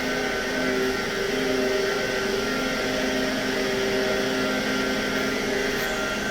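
A steady mechanical hum that holds several fixed pitches at an even level: an unidentified machine running.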